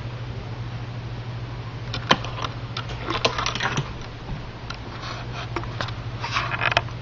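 A steady low hum under irregular clicks and short rustles from about two seconds in, the sharpest click first; the clicks and rustles fit handling noise from a handheld camera being moved.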